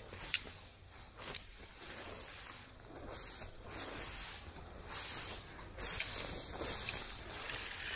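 Footsteps and brush rustling and swishing as a person pushes through thick, overgrown undergrowth, in irregular bursts about a second apart, with a couple of sharp snaps near the start.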